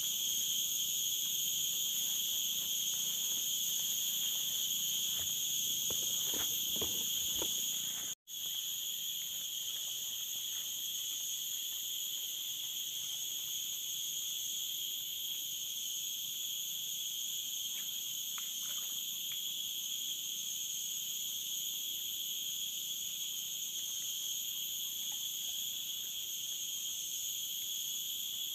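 Steady, high-pitched chorus of tropical forest insects droning in several layered pitches, with a few faint clicks. The sound drops out for an instant about eight seconds in.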